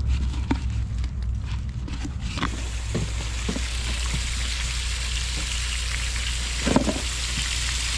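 Pressurised water spraying from a leaking PVC water line, a steady hiss that comes up about two and a half seconds in, after a few clicks and knocks as the water is turned on at the meter valve. The leak is at a PVC tee whose glue joint has come loose.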